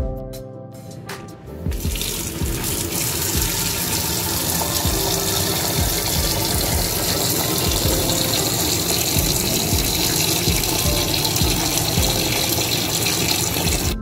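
Kitchen tap running into a water-filled bowl in a stainless-steel sink: a steady splashing rush that starts about two seconds in, after a short stretch of guitar music.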